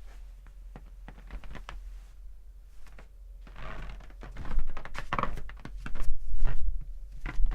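Footsteps on a creaking floor: soft steps and small knocks at first, then louder creaks and thuds from about three and a half seconds in.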